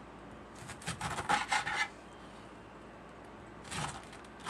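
Large kitchen knife cutting down through a pineapple's tough, rough rind: a quick run of rasping strokes about a second in, and another short one near the end.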